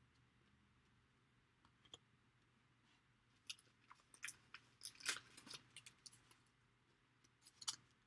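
Near silence at first, then a scattered run of light crinkles and clicks starting about three and a half seconds in, from a clear plastic card sleeve handled against a trading card.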